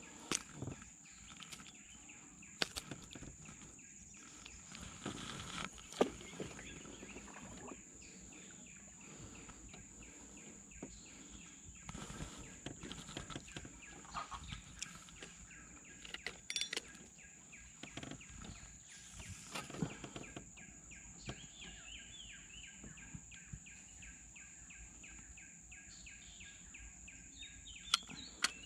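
Outdoor natural ambience: birds chirping and calling over a steady high-pitched drone, with scattered short clicks and knocks.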